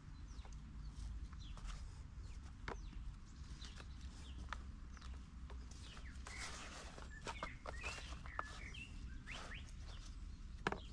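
Gloved hands pressing and crumbling potting soil in a plastic bucket: soft scrapes and small clicks. Short bird chirps come in around the middle.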